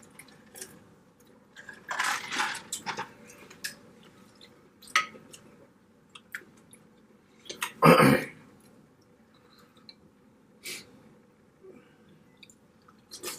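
Seafood-boil eating: chewing, with scattered clicks and cracks of blue crab shell and shrimp being worked by hand and mouth. A louder noisy burst comes about eight seconds in.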